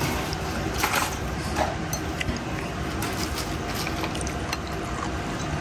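Spoons clinking and scraping lightly against ceramic bowls over a steady background noise, with a few brief louder scrapes about a second in.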